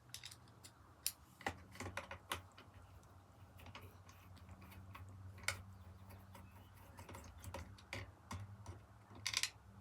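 Irregular small clicks and ticks of a screwdriver backing screws out of a vacuum cleaner's plastic headlight hood, over a faint steady low hum.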